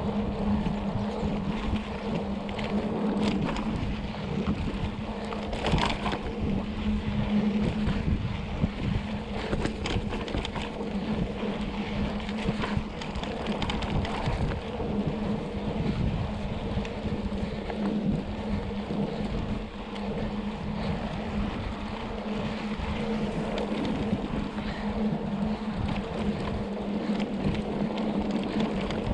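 Wind buffeting the microphone over the rolling noise of a mountain bike on a dirt road, with a steady low hum and scattered short rattles and knocks.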